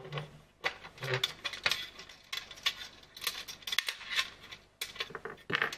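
Metal screws being turned out by hand from the locomotive's display board, giving a string of irregular small metallic clicks and clinks.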